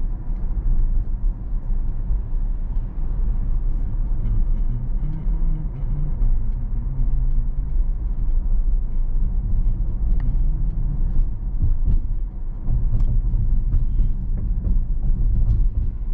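Low, steady rumble of road and tyre noise heard inside the cabin of a Tesla electric car driving through city streets, with a few faint clicks.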